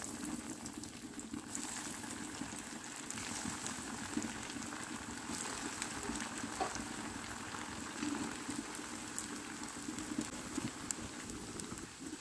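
Hot oil sizzling and crackling steadily as breadcrumb-coated snack balls deep-fry in an iron kadai.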